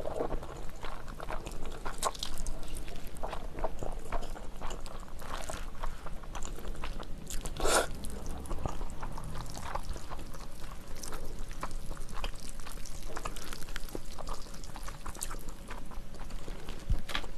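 Close-miked eating sounds: slurping and chewing jajangmyeon noodles, with wet mouth clicks throughout and one louder slurp about eight seconds in.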